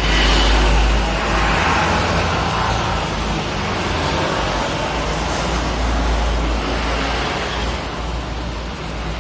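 Yamaha Vega ZR motorcycle's rebuilt four-stroke engine running steadily, a little louder in the first second: the engine running again after an overhaul for seizing caused by a broken oil pump gear.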